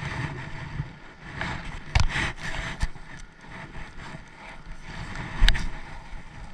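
Steady rain with wind buffeting the microphone, broken by a few sharp clicks and knocks, about two seconds in, near three seconds and again past five seconds, that fit fishing gear being handled.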